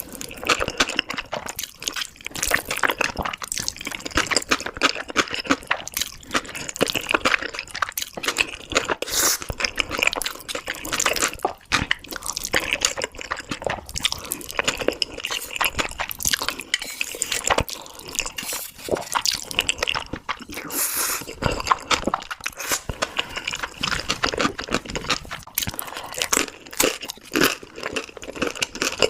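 Close-miked eating of black bean noodles: wet slurping and chewing, a steady stream of small wet smacks and clicks.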